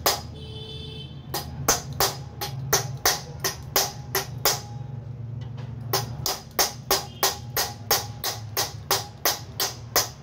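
Rapid repeated knocks on the motor end of a 14-inch cut-off machine, about three a second with a short pause midway, striking the back cover and rear armature bearing loose; the rear bearing is seized.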